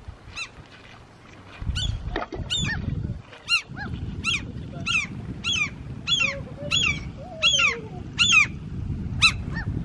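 Seabirds giving repeated harsh alarm calls, each one sliding downward, about two a second, over a low rumble of noise. The birds are mobbing people who have come near their nesting ground.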